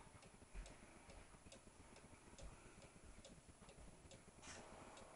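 Cuckoo clock movement ticking steadily as its pendulum swings, about two ticks a second. A short burst of hiss cuts in about four and a half seconds in.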